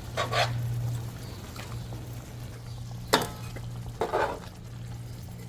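A pot of hassar curry with coconut milk cooking, with a few short stirring scrapes and a sharp knock about three seconds in.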